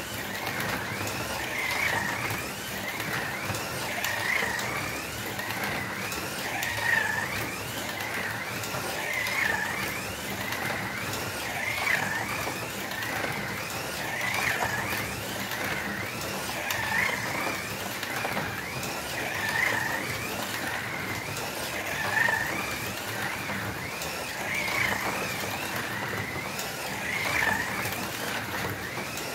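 Two Porsche 911 slot cars, a Fly and a Scalextric, lapping a plastic track, their small electric motors whining. The whine swells and fades each time a car passes close, about every two and a half seconds.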